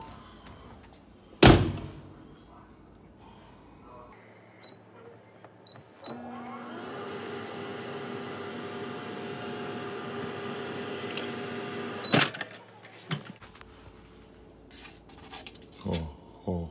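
Microwave oven in use: the door shuts with a loud clunk, a few keypad beeps follow, then the oven runs with a steady hum for about six seconds. It is stopped short of a full minute with a sharp click and beep as the door is popped open.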